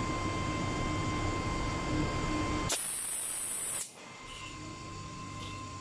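Gas hissing at a helium cylinder manifold: a sharp, high hiss about a second long in the middle, over a steady hum with a faint hiss. Once the burst ends, the background is quieter.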